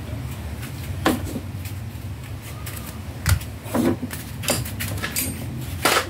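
Scattered sharp clicks and knocks, about six, from hard plastic and metal washing machine parts being handled while the motor is fitted.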